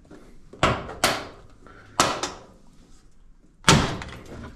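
Sharp knocks and clatters of appliance parts being handled and worked loose during disassembly: five hits, two close pairs and a loudest single one near the end.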